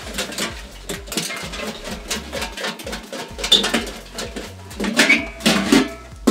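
Cut-out paper name slips being shaken inside a lidded container, a run of irregular rattling shakes.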